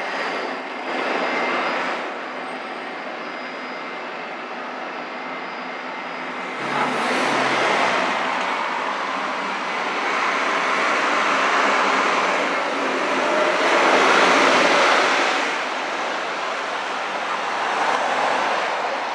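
City street traffic: vehicles passing, the noise swelling about a third of the way in and loudest a little after the middle, then easing off.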